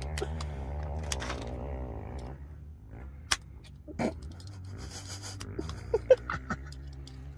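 Sharp metallic clicks and small taps as a pepperbox pistol loaded with nails in sabots is handled, a few separate clicks in the second half, over a steady low hum, with a wavering pitched tone for the first two seconds.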